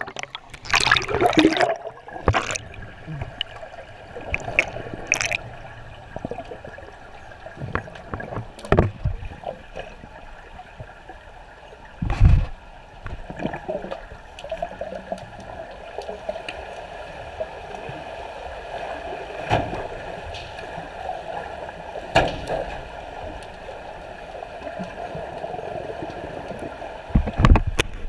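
Swimming-pool water splashing and gurgling around a camera at and below the surface as swimmers stroke and kick past. There are several sudden louder splashes, the strongest about twelve seconds in and another near the end.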